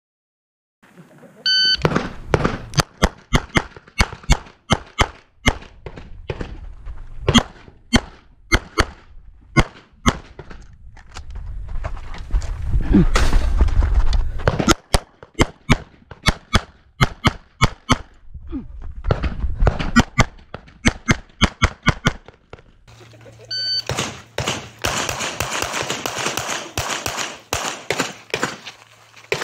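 A shot-timer beep, then a practical-pistol stage run with a 9mm CZ 75 SP-01: rapid shots, mostly in quick pairs, in clusters broken by short pauses while the shooter moves, for about twenty seconds. Near the end a second timer beep, then more shots over a steady hiss.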